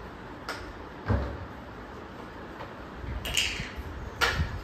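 Plastic toy vehicles knocking and clattering against a tiled floor and each other as they are handled, in about four separate short knocks.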